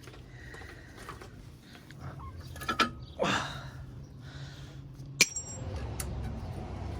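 Light metal clinks and scrapes of brake pads and caliper hardware being handled, with one sharp ringing clink about five seconds in.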